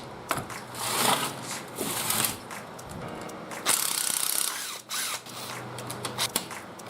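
Ratcheting tool noise in irregular bursts of up to about a second, with clicks and knocks of metal parts, as fasteners are worked loose while the seized engine is taken apart.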